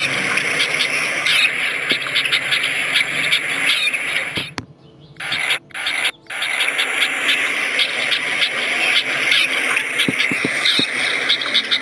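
Animal calls: a dense chorus of short, high squeaking calls repeating many times a second over a noisy background, broken by a brief near-silent gap about four and a half seconds in.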